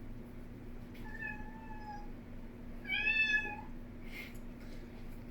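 A house cat meowing twice, the second meow louder and slightly rising then falling, over a low steady hum.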